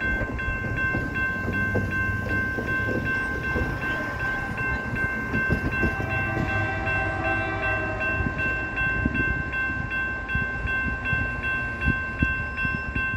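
Nathan K5H five-chime horn on a GE AC44CW diesel locomotive, sounded in one long unbroken blast for a grade crossing as the train approaches.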